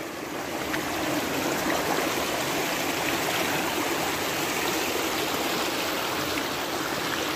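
Shallow rocky mountain stream running over boulders and small cascades: a steady rush of flowing water.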